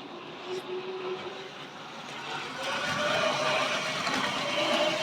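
Model railway locomotives running on the track: a whirring electric-motor whine with wheel noise, growing louder about two and a half seconds in.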